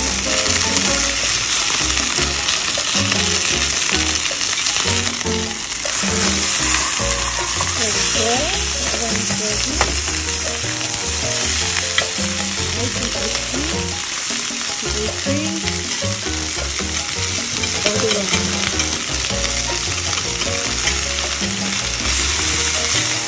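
Sea bream sizzling steadily in a stainless-steel Saladmaster electric skillet, frying in their own juices without oil.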